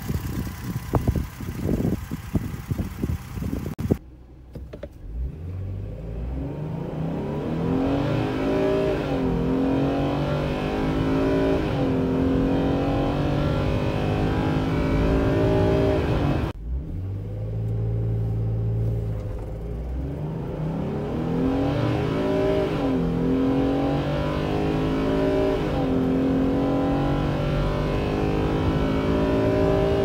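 Ford Transit van's V6 engine, first idling with a fast ticking in the open engine bay, then heard from the cab accelerating hard under an automatic gearbox, the revs climbing and dropping back at each upshift. A second full-throttle run starts again from low revs about halfway through.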